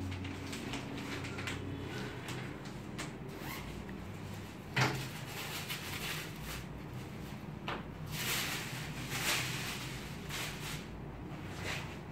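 Unpacking a leather jacket on a desk: a single thump about five seconds in, then bursts of tissue paper and leather rustling as the wrapping is lifted off, over a steady low hum.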